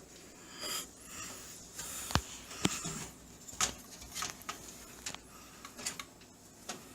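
Scattered small sharp clicks and taps of a screwdriver working a stubborn motherboard screw and standoff in a PC case. The standoff keeps turning with the screw instead of letting go.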